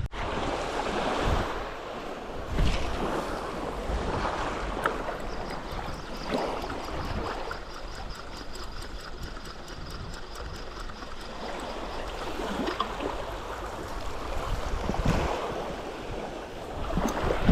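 Sea water sloshing and lapping, with wind on the microphone, and a faint rapid ticking for a few seconds in the middle.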